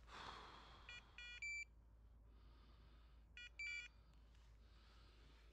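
A hunting dog's beeper collar gives faint electronic beeps in short groups of two or three, about every two and a half seconds. The repeating pattern is the collar's point signal: the dog is standing still on point over a bird. A brief rustle of brush comes right at the start.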